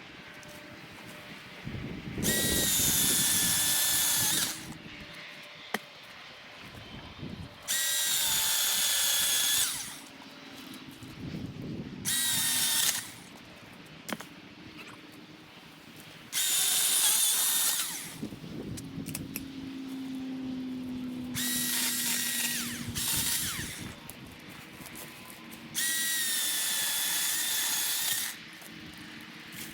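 Milwaukee Fuel battery chainsaw whining at full speed in five bursts of about two seconds each, cutting firewood, with quieter short runs between them.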